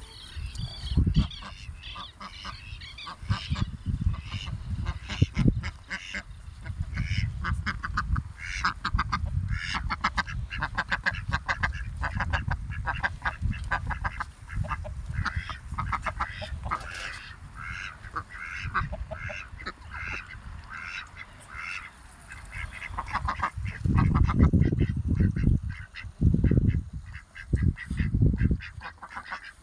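A flock of farm ducks calling, with many short quacks and honks following one another. Several loud bursts of low rumble come a few seconds before the end.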